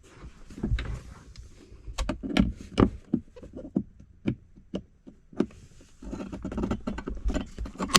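Center punch being tapped into dashboard plastic to mark hole positions: a run of sharp taps, about two a second, then scraping and handling of the parts around the mount.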